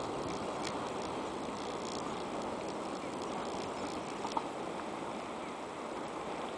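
Freight train's wagons rumbling away into the distance as a steady, slowly fading noise, with a few faint clicks about a second, two seconds and four seconds in.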